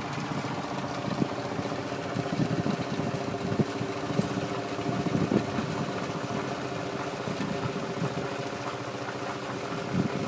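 Lanz Bulldog tractor's single-cylinder two-stroke engine running steadily while pulling a reaper-binder through standing rye, with irregular knocks and clatter from the binder's mechanism.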